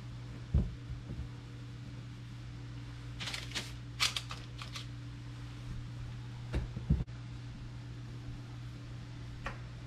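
Hands shaping soft ciabatta dough on a floured counter and setting it on a parchment-lined baking pan: a few dull thumps, the loudest near seven seconds in, and a short run of parchment paper crinkling around three to five seconds in, over a steady low hum.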